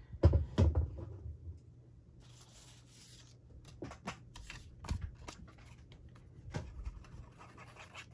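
Cardstock and paper scraps being handled on a craft table: a few knocks and thumps in the first second, then quiet rustling with scattered light clicks.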